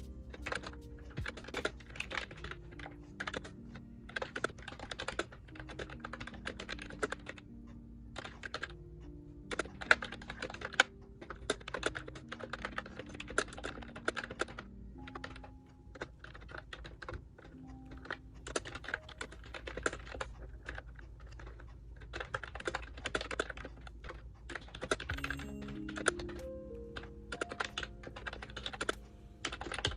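Typing on an Ajazz retro-style Bluetooth membrane keyboard: quick runs of light, clicky keystrokes broken by short pauses, over soft background music.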